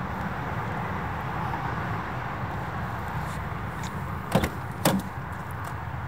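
Two sharp knocks about half a second apart, a little past halfway, from a 1959 Volkswagen Beetle's door latch as the door is opened, over a steady low rumble.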